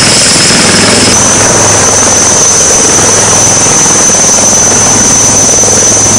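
HAL Rudra armed helicopter hovering close by: loud, steady rotor and turbine noise with a thin, high turbine whine that steps up slightly in pitch about a second in.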